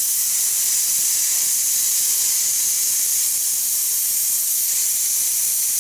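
Hypertherm Powermax 30 XP plasma cutter trimming a steel patch piece freehand: a steady, unbroken high-pitched hiss of the air-plasma arc.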